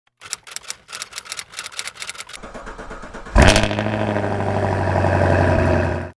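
Rapid, irregular clicking for the first couple of seconds. Then, about three and a half seconds in, an engine starts with a loud burst and runs steadily at a fast idle. It cuts off abruptly near the end.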